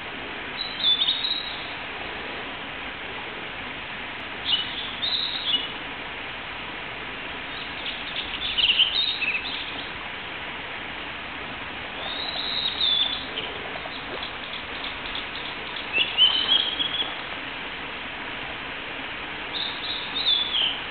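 Male blue-and-white flycatcher singing: six short phrases of high, quickly changing notes, one every three to four seconds, over a steady background hiss.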